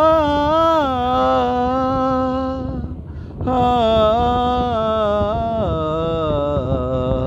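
A man singing long held, wordless-sounding notes of a Bengali patriotic song, two drawn-out phrases with a short breath between them about three seconds in.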